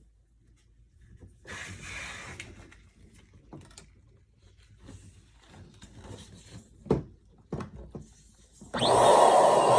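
Soft rustling and a few light knocks of balloons being handled. Near the end an electric balloon pump switches on suddenly and runs with a loud, steady blowing whir.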